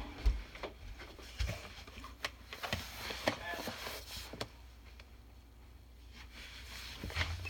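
Faint household room sound: scattered light knocks and clicks, with a brief indistinct distant voice about halfway through.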